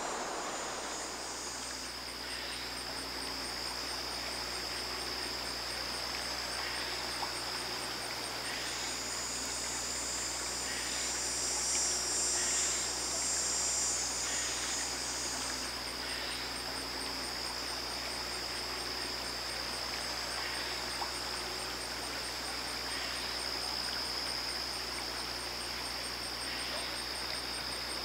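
Wetland insect chorus: a steady high-pitched insect drone with a faint, rapid ticking trill above it, over a soft even hiss.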